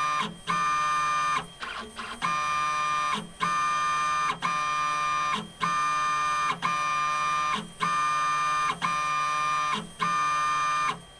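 Motor-driven syringe pump of an automatic laboratory analyzer whining in regular pulses about once a second, around ten times, as it draws liquid up and pushes it out again to mix plasma with water in a tube.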